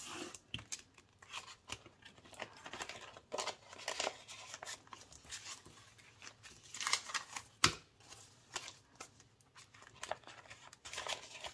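Paper bills and envelopes being handled: irregular soft rustling with scattered light taps and clicks, one sharper click about two-thirds of the way in.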